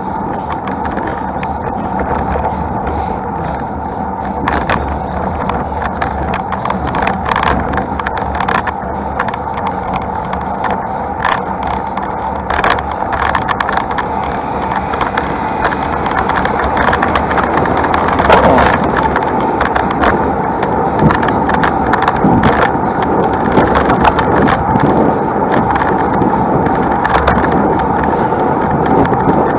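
Road bike being ridden uphill: steady riding noise with frequent sharp clicks and rattles from the bike.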